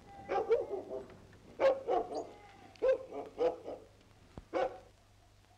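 A dog barking repeatedly in short, loud barks at irregular intervals. The barks stop a little before the end.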